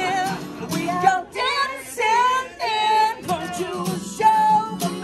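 Two acoustic guitars strummed together with a man singing live, his held notes wavering in pitch.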